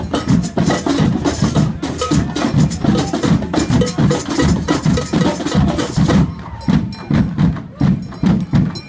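Street drumming band playing a quick, steady beat: deep drum hits with sharp, clicking high strikes over them. The high clatter thins out about six seconds in while the deep beat carries on.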